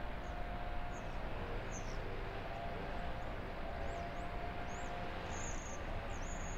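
Outdoor ambience: a steady low hum of distant traffic, with small birds chirping high and briefly, more often in the second half.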